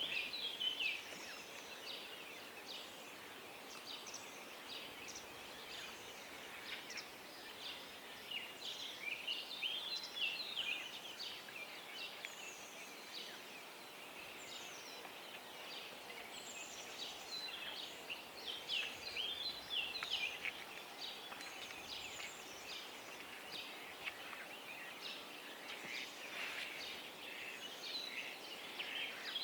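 Songbirds singing in a dawn chorus: many short chirps, trills and quick whistled sweeps from several birds, overlapping in fits and busiest in the middle and near the end, over a faint steady outdoor hiss.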